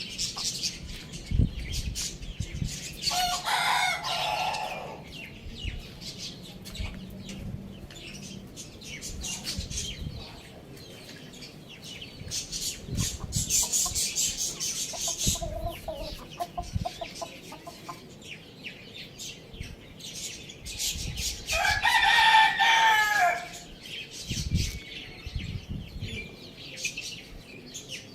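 A rooster crowing twice, about three seconds in and again about twenty-one seconds in, each crow about two seconds long and dropping in pitch at the end. Between the crows, hens cluck and small birds chirp, with scattered light clicks.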